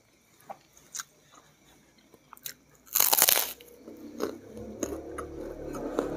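A bite into a crisp kerupuk cracker: one loud crunch about three seconds in, followed by chewing with small crackles.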